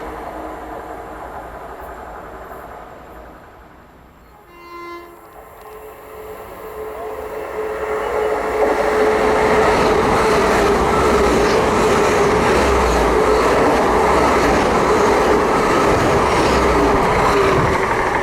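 A passing train fades away, then a short train horn blast sounds about four or five seconds in. After it, a Great Western Railway Class 800 and Class 802 bi-mode pair, running on their diesel engines, approaches, and wheel and rail noise builds to a loud, steady passing sound.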